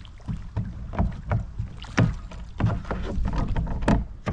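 Irregular knocks, thumps and splashing on and around a kayak as a hooked walleye is brought in and landed, with the loudest hits about one, two and four seconds in.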